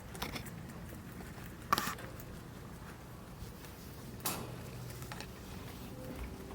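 Pet rabbits eating: quiet nibbling and chewing with three sharp clicks, the loudest about two seconds in.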